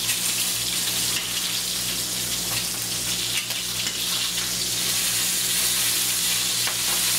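Sweet and hot Italian sausages sizzling steadily as they brown in a frying pan, with a few light clicks of metal tongs turning them.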